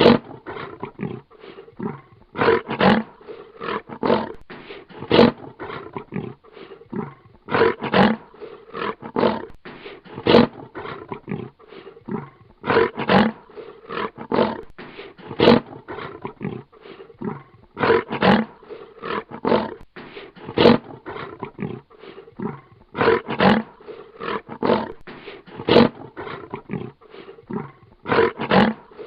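Lion roaring in repeated bouts, about every five seconds. Each bout is a loud call followed by a run of shorter, fading grunts.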